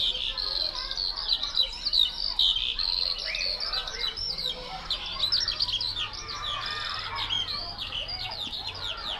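Many small birds chirping at once: a dense, continuous chatter of short, high calls.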